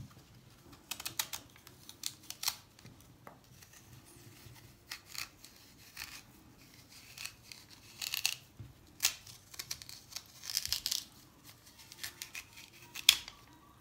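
A small knife cutting and scraping the hard core and seeds out of a raw, peeled quince half, in short, crisp strokes at irregular intervals, the sharpest near the end.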